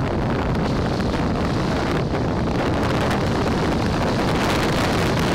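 Steady wind noise buffeting the microphone, over a rush of water.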